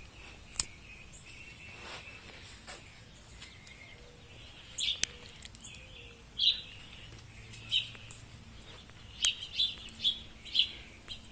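Short, high chirping calls, a few at first and then coming more quickly in the last couple of seconds, with an odd sharp click between them.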